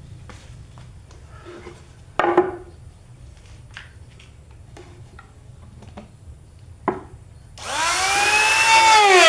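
Light knocks and clatter of wood and tools being handled, loudest about two seconds in. Near the end a router motor starts and spins up, its whine rising in pitch and then holding steady, ready to profile the tray's edge.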